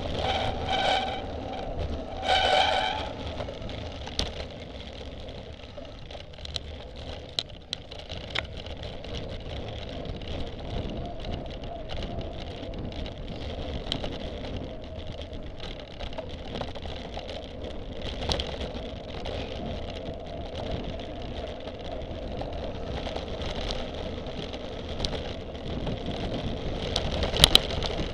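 Onboard ride noise from a camera carried on a cyclocross bike on a dirt course: a steady rumble of tyres and wind with the bike and mount rattling and clicking over bumps, and a few sharp knocks near the end. A few short pitched sounds come in the first three seconds.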